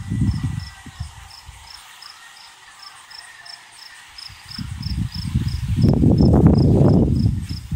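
A cricket chirping in a steady even rhythm, about three high chirps a second. About five seconds in, a louder low rushing noise swells up for about two seconds, louder than the chirping.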